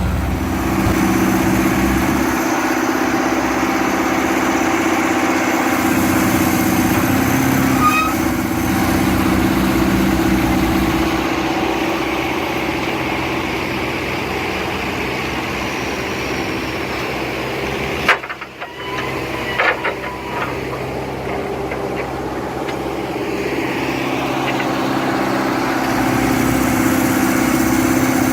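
Engine of a heavy antique construction machine running, its pitch and load shifting a few times. A short break with a few clicks comes about two-thirds of the way through.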